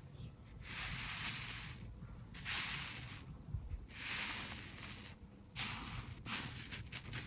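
Jelly slime being squeezed and stretched by hand: four separate hissing, squishing bursts, then small crackles near the end.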